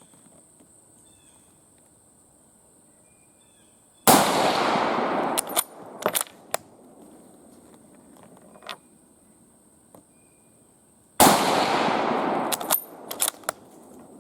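Two rifle shots from an Argentine 1909 Mauser, chambered in 7.65×53mm, about seven seconds apart. Each shot is loud and sudden, with a long echo lasting over a second, and is followed by a few sharp metallic clicks as the bolt is worked.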